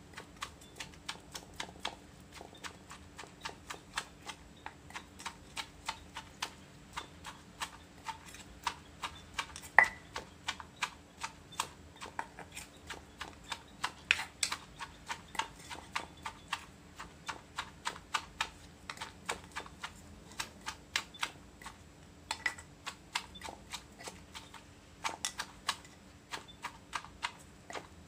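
Wooden pestle pounding shredded green papaya in a mortar for som tam: a steady run of light knocks, about three a second, a few of them sharper than the rest.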